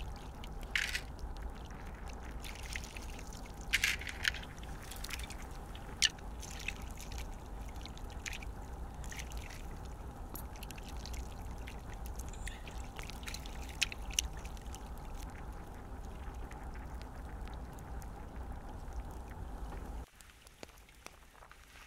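Shallow stream running over stones, with splashes and clatter as hands scrub potatoes and tomatoes in the water. The running water drops away abruptly near the end.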